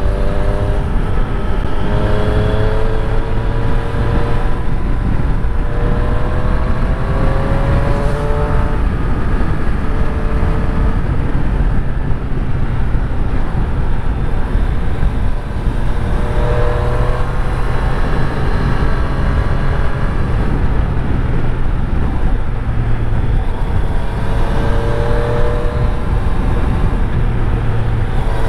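Triumph Street Triple 765 RS three-cylinder engine under way on the road, its note rising in pitch several times as the bike accelerates, over a heavy low rumble of road and wind noise.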